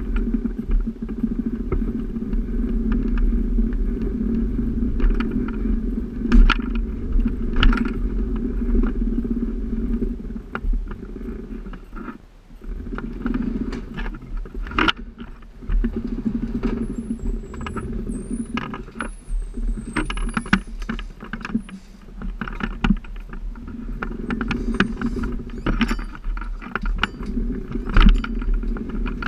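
Scooter motor humming steadily as it rolls slowly through a doorway, with scattered clicks, knocks and rattles from the door and its hardware. A few thin high chirps sound about two-thirds of the way through.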